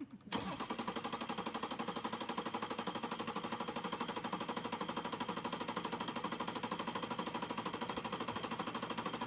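BMW X7 3.0 diesel inline-six being cranked on its starter without catching, a rapid even pulsing of about ten beats a second that begins just after the start. The fuel system has just been cleaned out after a misfuelling with petrol, so the engine is slow to fire.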